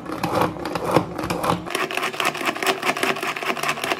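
Hand-pulled food chopper with a glass bowl, its blades whirring and rattling through boiled chicken in quick repeated pulls.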